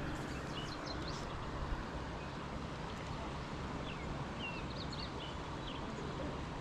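A steady low hum like a distant engine, with scattered short, downward-sweeping bird chirps over it.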